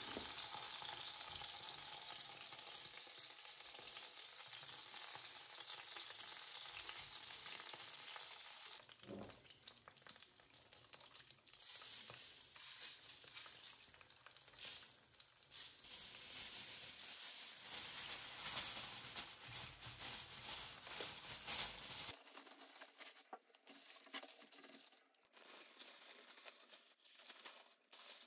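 Food sizzling as it fries in a pan, a fine steady hiss. About 22 seconds in it cuts off abruptly, giving way to quieter scattered clicks.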